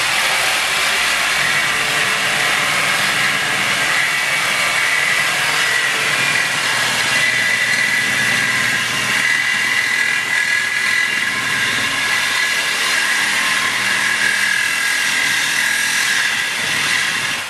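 DeWalt reciprocating saw cutting through a car's steel exhaust pipe: a steady, loud cutting noise with a high screech of the blade on the metal running through it. The blade is dull and cutting slowly.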